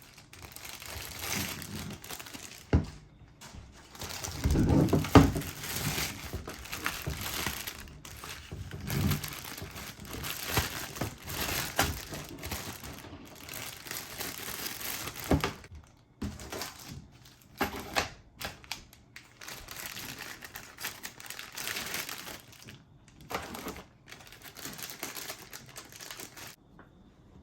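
Hands working on PC parts: irregular crinkling and rustling of plastic with scattered clicks and knocks, loudest about five seconds in.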